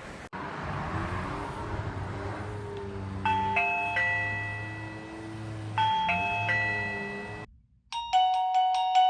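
Electronic doorbell chime sounding a two-note ding-dong twice, about three and six seconds in, over a low steady hum. After a brief cut, a quicker run of chime notes plays near the end.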